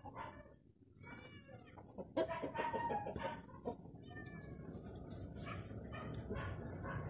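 Faint animal calls, short and repeated, over a low steady noise that builds from about four seconds in.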